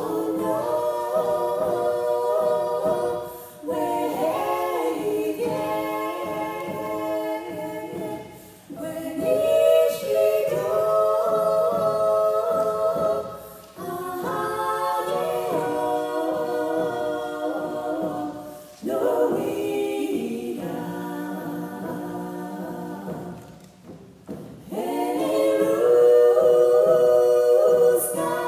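A women's vocal group singing a cappella in harmony, held notes in phrases of a few seconds each with short breaks between them.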